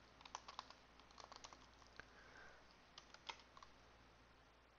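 Faint typing on a computer keyboard: short clusters of quick key clicks that stop near the end.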